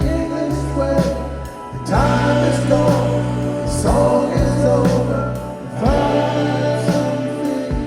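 A rock track playing back through hi-fi loudspeakers. Long pitched notes rise and bend about every two seconds over a steady bass line.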